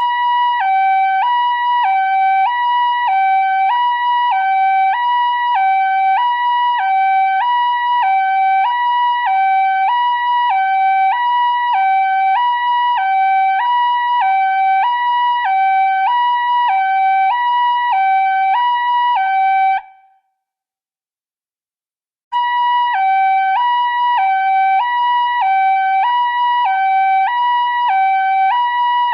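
Emergency alert alarm tone: a two-pitch hi-lo siren sound, switching between a higher and a lower note in a cycle roughly every second and a quarter. It cuts off abruptly about twenty seconds in and starts again after about two seconds of silence.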